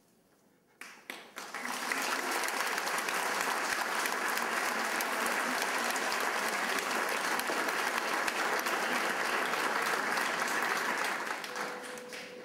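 Audience applauding: a few scattered claps about a second in, quickly swelling into full, steady applause that fades near the end.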